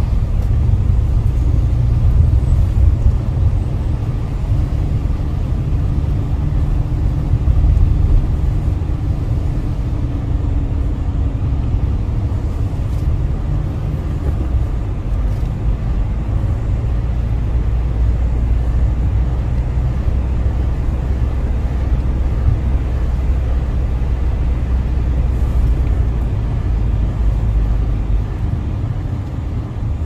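Steady low rumble of a BMW car driving, engine and tyre noise heard from inside the cabin.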